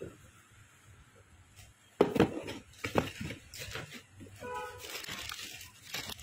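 Cardboard shoebox being opened and tissue paper rustling and crinkling as it is pulled back. It starts suddenly about two seconds in and continues as irregular crackles.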